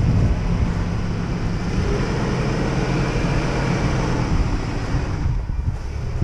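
Jeep Grand Cherokee's engine running steadily as the SUV drives slowly across a muddy, snowy slope close by; the sound turns duller about five seconds in.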